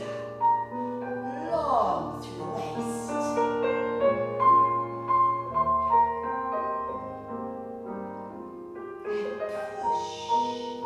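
Piano music for a ballet barre exercise, with long held notes.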